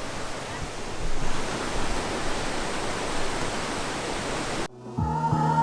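Steady rushing noise, with some low rumbling gusts about a second in. It cuts off sharply near the end and background music with a beat comes in.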